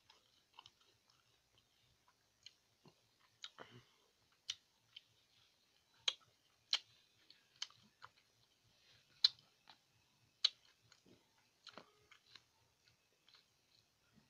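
Close-up chewing of a mouthful of rice and pineapple: scattered wet mouth clicks and smacks at an irregular pace, with a handful of sharper, louder smacks in the middle.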